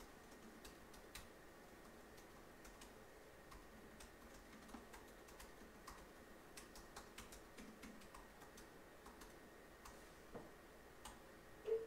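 Faint, irregular clicks of typing on a laptop keyboard, a few to several a second, over quiet room tone.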